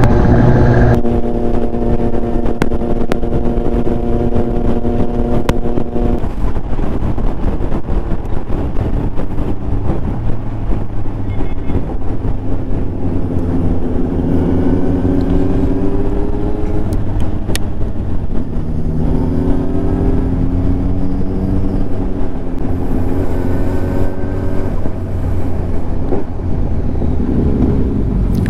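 Kawasaki Ninja 1000SX's inline-four engine running under way: a steady drone for the first few seconds, then its pitch rising and dropping several times as it pulls through the gears.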